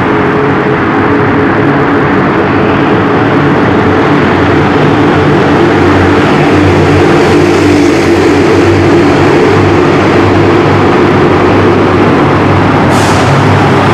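Loud, steady traffic noise inside a road tunnel, passing vehicles' engines and tyres with a low steady drone underneath, and a short hiss near the end.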